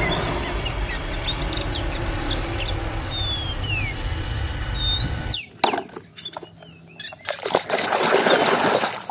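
A twin-engine jet airliner landing: a steady rush of engine and air noise, with birds chirping over it. It cuts off about five seconds in. Near the end comes the sloshing of thick muddy water being stirred in a basin.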